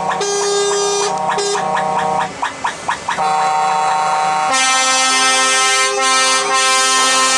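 Truck air horns sounding held chords with short breaks, a run of quick short toots about two and a half seconds in, then a louder sustained blast from about halfway.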